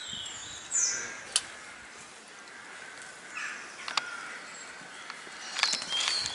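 A few short bird calls, crow-like caws among them, with scattered sharp clicks of footsteps and handling on stone steps toward the end.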